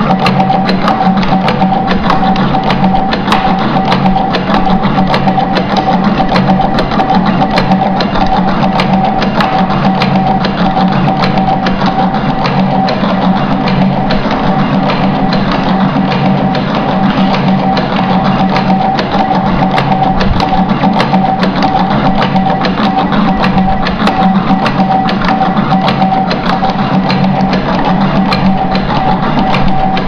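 Automatic cable cutting and stripping machine running: a steady motor hum and whine with fast, continuous clicking from its cutting and feed mechanism.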